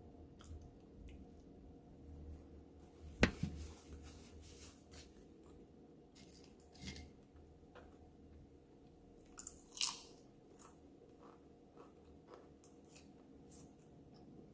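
Close-miked eating sounds: a person chewing and biting, with scattered short crunches and wet mouth clicks. There is a sharp crunch about three seconds in and a louder cluster near ten seconds.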